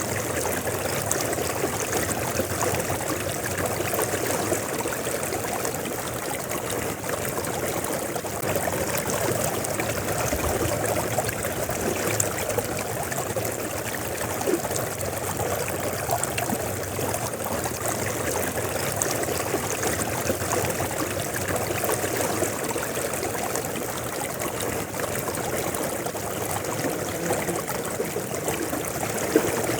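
River water flowing steadily, an even, unbroken rush with a fine babbling texture.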